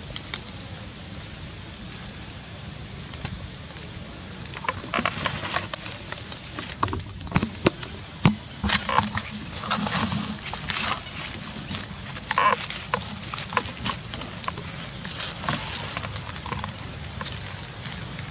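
Steady high-pitched insect drone, with scattered short rustles and clicks from macaques shifting and grooming on dry leaf litter, busiest through the middle.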